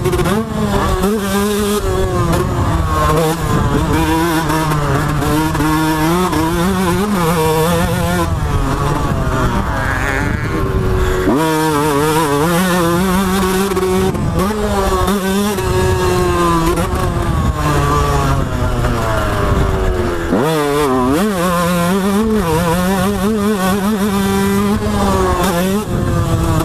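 Yamaha YZ125 two-stroke motocross bike engine heard from on board, revving hard up and down through the gears. Its pitch keeps climbing and falling as the throttle opens and shuts, with sharp drops and climbs about a third and two-thirds of the way in.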